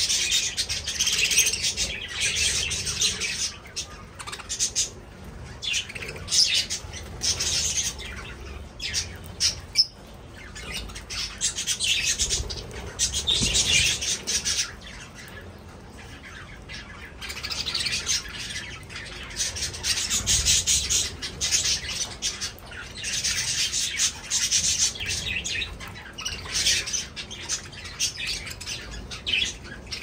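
A flock of budgerigars chattering, chirping and squawking, the busy chatter coming in waves with a few short, quieter lulls.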